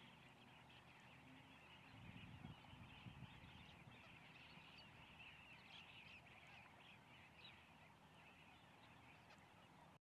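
Faint, constant chatter of many distant waterbirds calling together, cutting off at the end.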